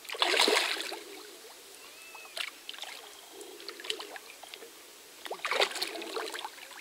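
A freshly released carp splashing at the pond's surface as it swims off: a loud splash right at the start and another about five and a half seconds in, with small drips and sloshes between.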